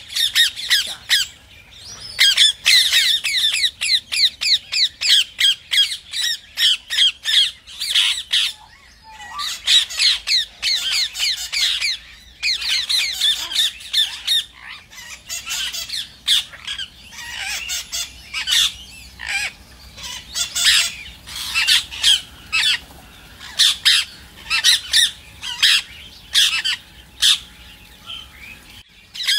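Ring-necked parakeets calling in rapid runs of high-pitched notes, with several calls overlapping and short pauses between runs.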